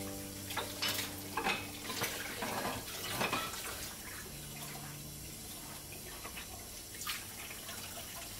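Kitchen faucet running into a sink during hand dish-washing: a steady stream of water with several clinks and clatters of dishes in the first few seconds and one more near the end.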